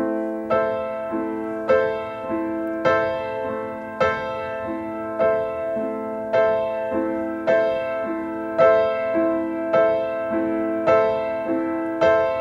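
Music: a slow solo piano intro, single notes struck in an even rhythm a little under two a second, each ringing on under the next.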